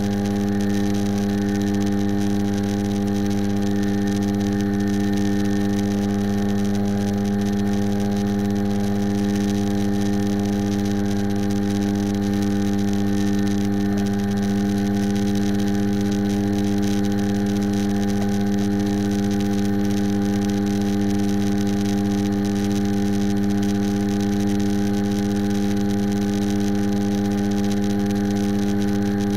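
Airplane's propeller engine running steadily in flight: an unchanging low-pitched drone with a stack of overtones.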